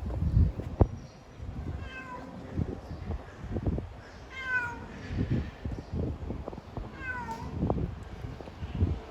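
Cat meowing three times, each call falling in pitch. Low rumble and thumps on the microphone run underneath, loudest in the first second.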